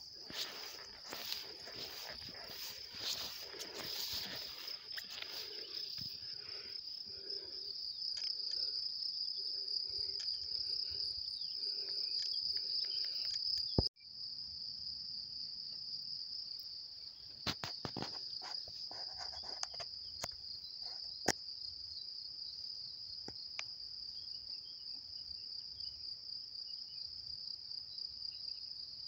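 Meadow insects chirring in one steady high-pitched drone, broken once by a sudden cut about halfway. Grass rustles and crackles during the first few seconds.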